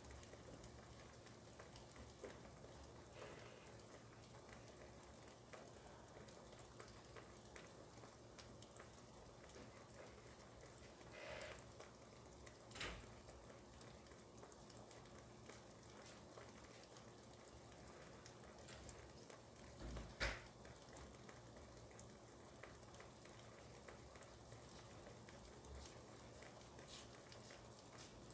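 Faint, steady patter of rain, with a few short soft clicks or knocks near the middle and once more a little later.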